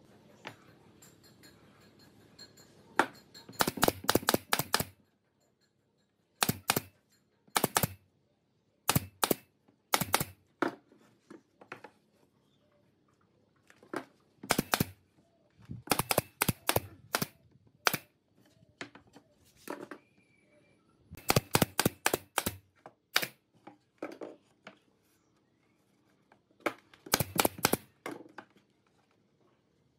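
Pneumatic nail gun firing nails into pine battens and boards: sharp shots, some single and many in quick runs of several, with short pauses between runs.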